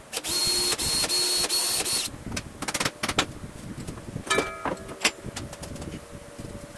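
Cordless drill running for about two seconds in a few quick trigger bursts as it drills a hole through a clear acrylic router base plate. Tools then clatter and knock on the bench.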